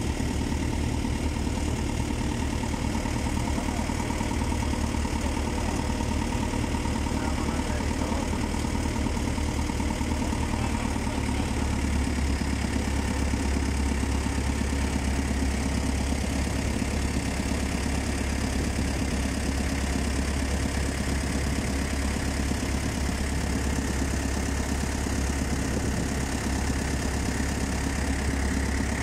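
A fishing boat's engine running steadily at a constant speed, a deep continuous drone.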